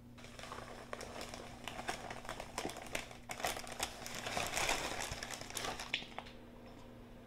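Crinkling of the plastic inner bag of a boxed cake mix as it is handled, opened and shaken out into a glass bowl, full of small crackles and ticks. It is loudest as the mix is shaken out and stops about six seconds in.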